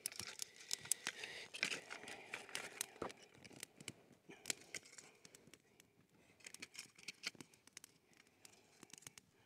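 Small wood campfire crackling, with sharp clicks and snaps of kindling sticks being handled, broken and laid on it. The snaps come thick in the first few seconds and thin out later.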